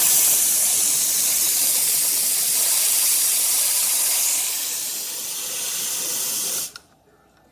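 Espresso machine steam wand hissing steadily as it lets out steam, then shutting off abruptly near the end.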